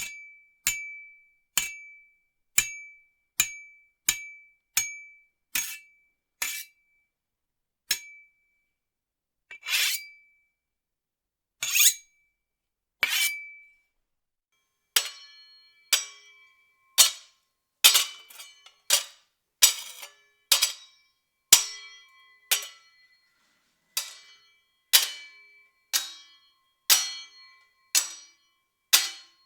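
A series of sword sound effects: sharp metal blade clangs and clinks, each with a short ringing tail. They come about one a second at first, a few longer ringing strikes follow in the middle, then they come quicker, about two a second.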